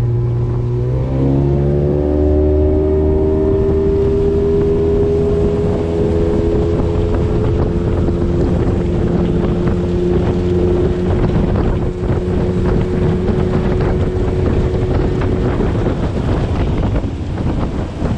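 Small-boat outboard motor pushing an aluminium jon boat along. It revs up about a second in and then runs steady at speed, with wind buffeting the microphone. Near the end the engine tone fades under the wind and water noise.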